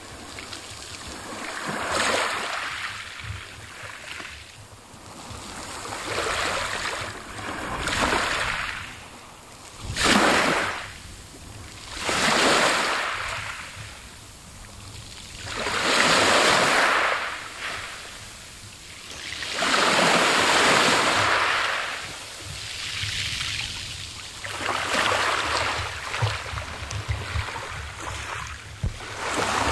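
Small waves breaking on a pebble beach, each one swelling and washing in and out over the stones with a hiss, one every few seconds.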